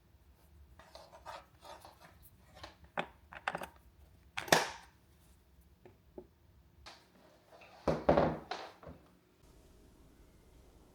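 Handling noises: an irregular run of clicks, knocks and scrapes, with a louder knock about four and a half seconds in and a cluster of knocks around eight seconds, then a faint steady hiss near the end.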